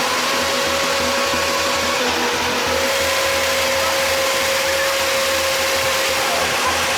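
A machine running steadily, a dense mechanical hum with a constant high whine that dips slightly in pitch about two seconds in.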